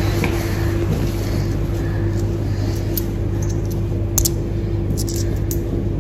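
Steady low hum of laundrette machines running, with a few sharp clinks of pound coins being dropped into a palm from about three seconds in.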